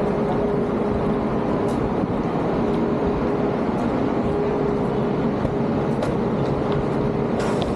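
Steady city street traffic noise with a constant droning hum, vehicles and a bus running beside the sidewalk, and a few faint clicks.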